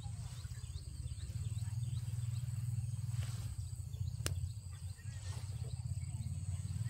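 Rural field ambience: insects trilling steadily at two high pitches, with scattered short chirps over a steady low rumble. A single sharp click sounds about four seconds in.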